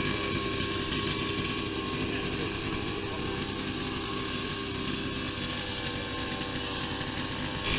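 Small petrol engine running steadily at a constant speed, with no change in pitch.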